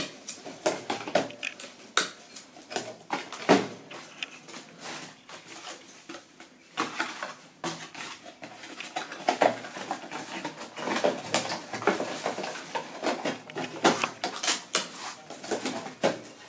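Hand packing of ground-wheel fireworks: irregular clacks, taps and rustles as small cardboard boxes and plastic-wrapped packs of chakras are handled and filled.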